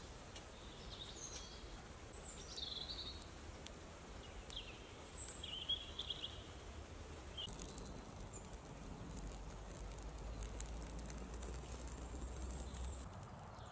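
Quiet woodland ambience: a bird gives several short chirps, mostly in the first half, over a faint hiss with scattered faint clicks.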